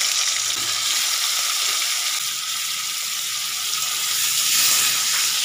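Paneer cubes frying lightly in hot rice bran oil in a steel kadai, a steady sizzle.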